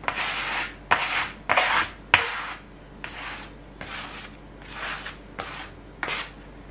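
Plastic dough scraper scraping across a wooden table, gathering stuck dough scraps and flour during kneading: a series of about nine scraping strokes, the first four loudest and the rest softer.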